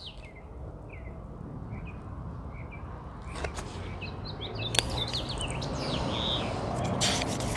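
Small birds chirping, with short high chirps scattered through, over a steady low background rumble. A few sharp clicks and a brief rustle come near the end.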